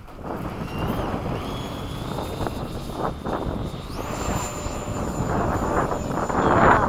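Electric ducted-fan whine of an FMS 80mm Hawk RC jet, growing louder as it comes closer; the whine rises in pitch and jumps higher about four seconds in as the fan spools up. Wind noise on the microphone runs underneath.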